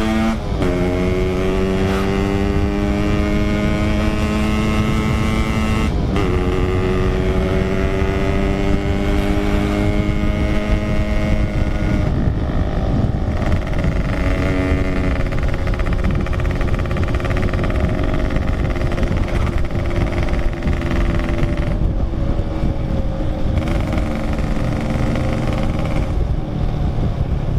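Yamaha RX King 135 cc two-stroke single-cylinder motorcycle engine under way, pulling through the gears: the revs climb, drop at a gear change about six seconds in, climb again, then hold fairly steady with small rises and falls. A steady low rumble of wind on the microphone runs underneath.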